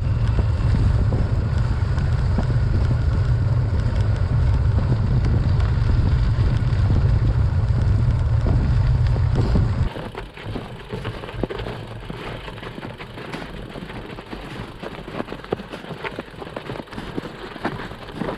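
Bicycle riding off-road through snow. For about ten seconds a heavy low wind rumble on the microphone covers everything. It then drops away suddenly, leaving quieter crunching and crackling of tyres over snow.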